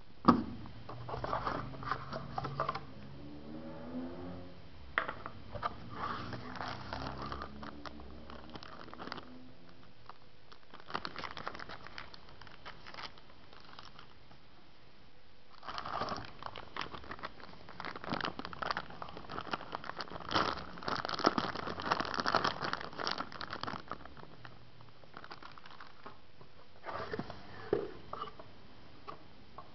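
Packaging from a smartphone unboxing being handled: a sharp knock at the start, then irregular spells of crinkling and rustling, with some tearing. The longest and loudest spell comes past the middle.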